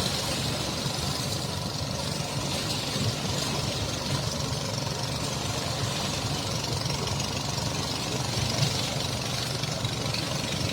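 An engine running steadily at idle: a constant low hum under an even hiss.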